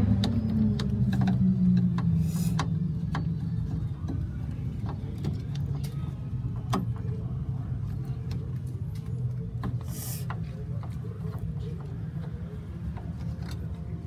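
A motor vehicle's engine rumbling, loudest at the start and fading steadily, with scattered light clicks and taps over it.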